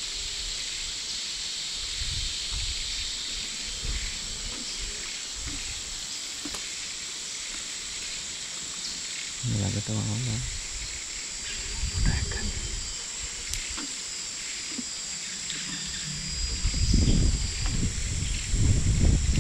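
A wild Sri Lankan elephant feeding and moving through scrub close by. There are a few low-pitched sounds about halfway through and a longer run of them near the end, over a steady high hiss.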